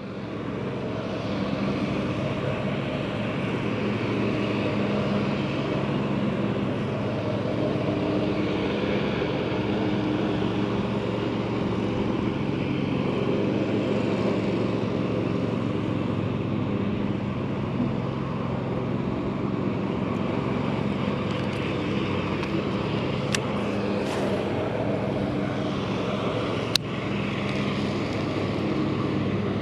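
Steady engine-like drone with a low hum, and a few sharp clicks late on.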